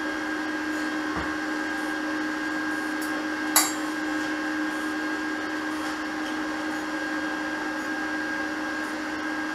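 A steady whirring machine hum with a constant tone in it, and a single sharp click about three and a half seconds in.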